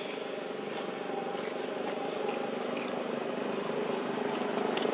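A motor running steadily, an engine drone that grows a little louder near the end.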